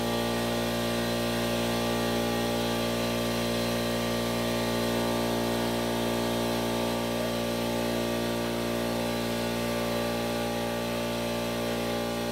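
Electric power tool motor running steadily at one constant speed, with no change in pitch or load.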